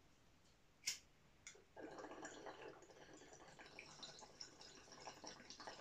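A lighter clicks once, then about a second later water bubbles in a glass bong as smoke is drawn through it, running on for about four seconds.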